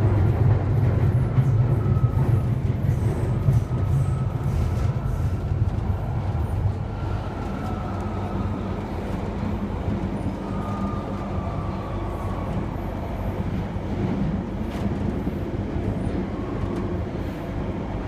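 London Underground Central Line tube train running through a tunnel, heard from inside the carriage: a steady low rumble, loudest in the first few seconds, with faint wheel squeals sliding in pitch now and then.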